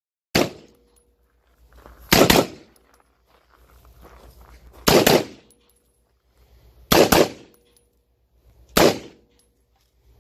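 Spikes Tactical Buccaneer AR-15 rifle firing single shots, five loud reports about two seconds apart, several of them doubled, each with a brief echo.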